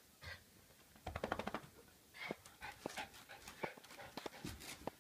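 A dog making short, sharp noises in quick bursts, with a rapid run of them about a second in.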